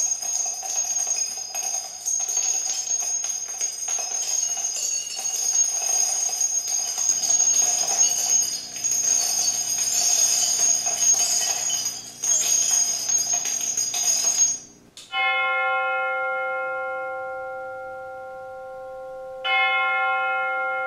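Demo music played through a Bose Acoustimass 5 speaker system. For about 15 seconds there is a dense jingling, shimmering bell passage. It cuts off abruptly, and a deep bell tone is struck and rings down slowly, then is struck again near the end.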